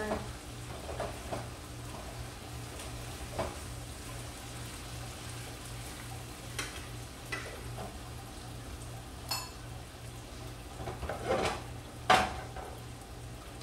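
Food frying in pans on the stove, with a cooking utensil stirring and knocking against a pan now and then; the sharpest knock comes about twelve seconds in.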